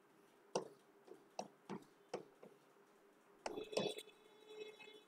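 Marker tip tapping and scratching on a writing board while drawing short strokes: a run of faint separate taps, then a quick cluster of taps with a thin squeak about three and a half seconds in.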